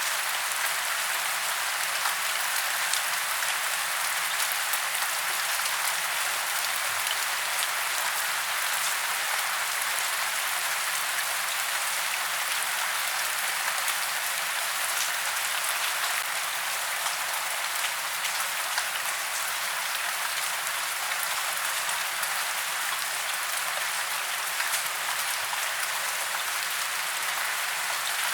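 Steady rain falling on tree branches and leaves in woodland: an even hiss of many fine drops, with scattered sharper drip ticks.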